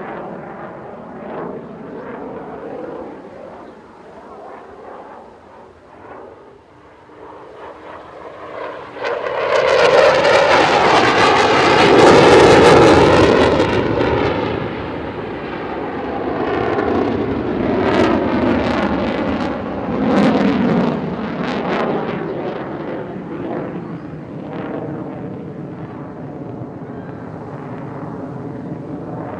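Eurofighter Typhoon's twin EJ200 jet engines at display power. About ten seconds in they swell to a loud roar with afterburners lit, the tone wavering as the jet passes. The roar breaks into crackling, then slowly fades.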